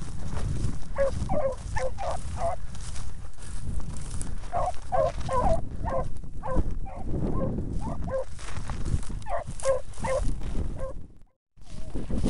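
Beagles baying in short bursts of repeated calls as they run a rabbit's scent trail, over a steady low rumble. The sound cuts out for a moment near the end.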